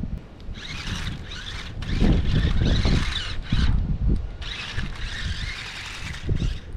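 Small electric motor and plastic gears of a budget toy RC car, running on a 9-volt battery, whining in repeated bursts of throttle as it drives over rough ground, over a low rumble.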